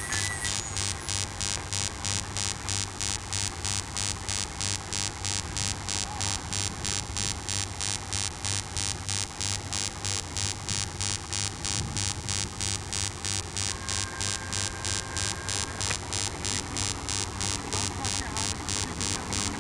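Steady electrical hum with static hiss that pulses evenly a few times a second, typical of a noisy old video-tape soundtrack. A faint steady high tone sounds briefly about fourteen seconds in.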